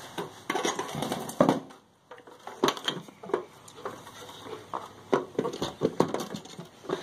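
A camo-patterned metal toolbox being handled and opened: a string of irregular clicks, knocks and short metallic clanks from its handle and lid, some with a brief ring.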